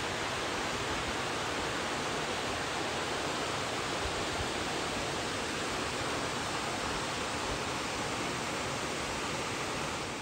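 Steady rush of falling water from a waterfall, an even noise with no breaks, ending abruptly.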